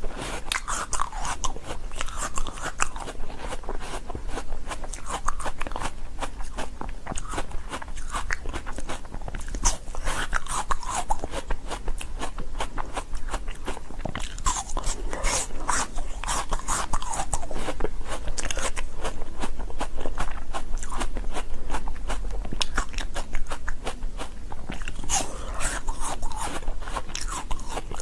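A person biting and chewing hard shaved ice close to the microphone: a continuous, dense crunching made of many sharp cracks.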